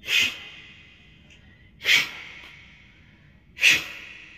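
A large knife blade being sharpened: three slow scraping strokes, about two seconds apart, each leaving a ringing tone that fades.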